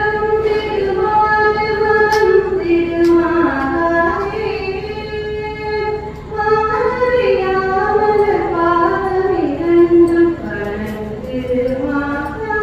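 A female voice singing a slow devotional melody, with long held notes that slide between pitches.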